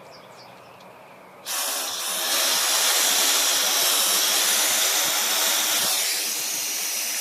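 Garden hose water jetting through a homemade hydraulic ram pump, starting abruptly about a second and a half in as a loud, steady rushing hiss that eases slightly near the end. The waste valve is stuck shut, so the water is driven out through the delivery pipe.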